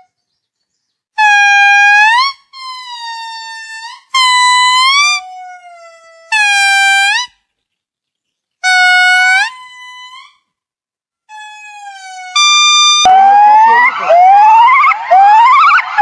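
A series of loud, drawn-out animal calls, each about a second long and rising in pitch at the end, repeated with pauses between them. About three-quarters of the way through it changes to many short rising calls overlapping.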